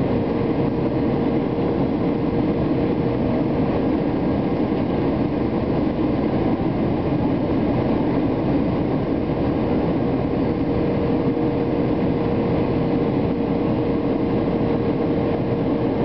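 Boeing 757 cabin noise heard from a window seat over the wing during the approach: the steady drone of the engines and airflow, with a constant mid-pitched hum over it.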